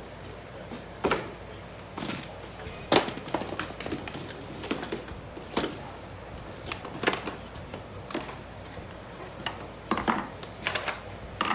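Irregular knocks, clicks and clatter of grill-stand parts and packaging being handled and taken out of the box, about a dozen sharp strikes with the loudest about three seconds in.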